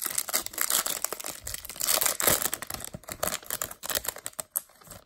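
Foil wrapper of a Topps Chrome baseball card pack crinkling and tearing as it is ripped open by hand, loudest about two seconds in, then fading to light rustling near the end.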